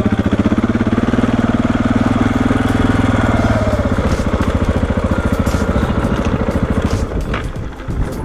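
KTM 690 Enduro's single-cylinder engine running with fast, even firing pulses, its speed dropping to a lower idle about three and a half seconds in. Scattered light clicks come in over the second half.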